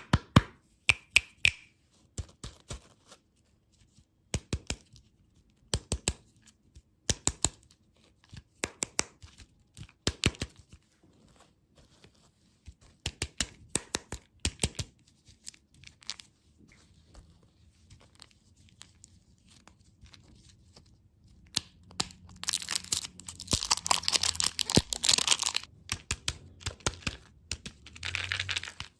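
Close-up ASMR candy and dessert eating: sharp crunching clicks in short clusters of two to four. Later comes a few seconds of dense crinkling, tearing noise, then more near the end.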